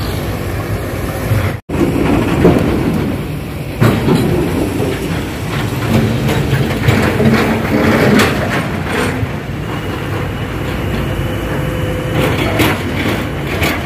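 Heavy diesel machinery and trucks running, with repeated clanks and knocks over the engine noise. The sound drops out for an instant about two seconds in.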